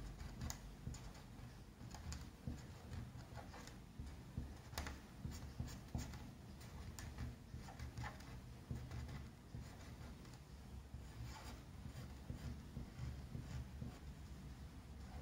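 Felt-tip marker drawing on a small paper card: quiet, irregular short scratches and taps of the tip as the lines are drawn.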